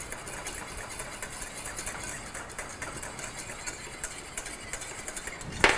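Wire balloon whisk beating a thick egg-yolk sabayon for béarnaise in a stainless steel saucepan: a fast, steady scraping and ticking of the wires against the pan. A single sharp clank near the end.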